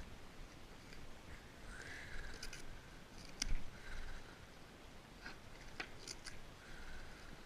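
Goats eating feed: scattered crisp crunching and clicking, with one sharper knock about three and a half seconds in.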